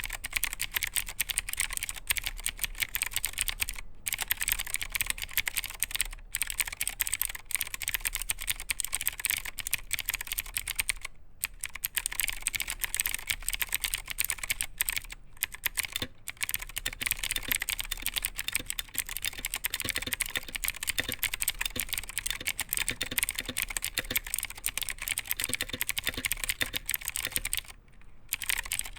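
Fast, continuous typing on a budget mechanical keyboard fitted with clicky blue switches (Cherry MX Blue clones), each keystroke giving a sharp, high click, with a few brief pauses.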